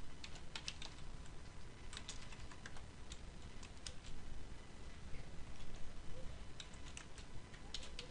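Computer keyboard keys clicking quietly in short, irregular runs of keystrokes as a few words are typed.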